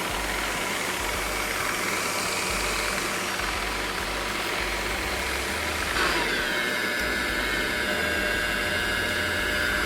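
Drill-press sharpening rig running steadily, grinding a stump grinder tooth under coolant, a constant grinding hum with a thin whine. About six seconds in there is a small jump in level and the whine drops in pitch and holds lower.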